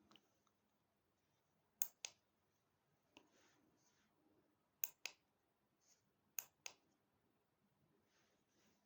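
Three pairs of sharp clicks from handling the bicycle taillight set's small hard parts, each pair a click and a quick second click.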